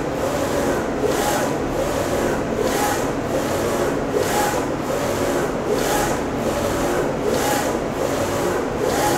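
WER A1 ED6090UV LED flatbed UV printer printing: its print-head carriage shuttles back and forth over the bed, a swishing pass about twice a second over a steady motor hum.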